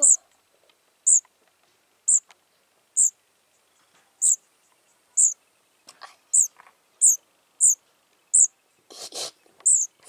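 Baby bird fallen from its nest calling with short, very high chirps, about one a second at first and coming faster in the second half. There is a brief rustling noise about nine seconds in.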